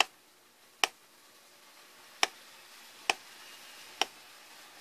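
Five sharp clicks at irregular intervals, each short and crisp.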